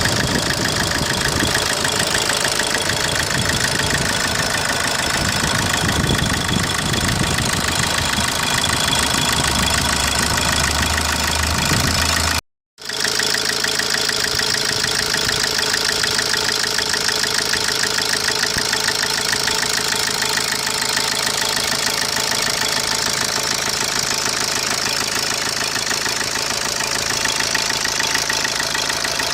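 Opel Corsa D 1.3 CDTI four-cylinder diesel engine idling steadily with a fast, even ticking running through it, the abnormal engine noise under investigation. About twelve seconds in, the sound cuts out for a moment and resumes with less low rumble.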